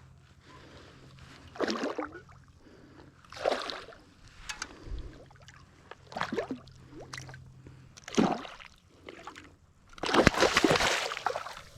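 Water splashing in separate bursts as a hooked fish thrashes at the surface while being fought. There are about five splashes, the longest and loudest about ten seconds in, lasting over a second.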